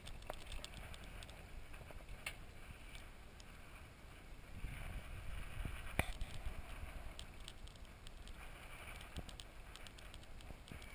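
Bicycle rolling along a street, heard through a handlebar-mounted GoPro: a steady low rumble of tyres and wind, with scattered light clicks and rattles and one sharper click about six seconds in.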